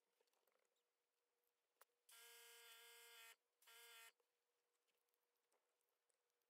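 Mostly near silence. About two seconds in, and again briefly about three and a half seconds in, there is a faint hiss with a steady humming tone: an airbrush spraying paint onto a small lure in two short bursts.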